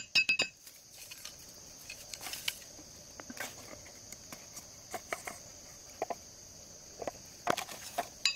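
Quick, sharp strikes of a machete on a bamboo stake being driven into the ground, about five a second, with a ringing note; they stop about half a second in and start again near the end. Between them, a steady high drone of crickets, with a few light knocks and taps.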